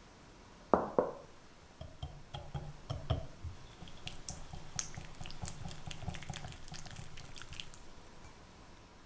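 Two sharp clinks on a glass bowl about a second in. Then a red silicone whisk beats three egg yolks in a glass mixing bowl: a quick run of light ticks against the glass with a soft wet stirring, stopping about a second before the end.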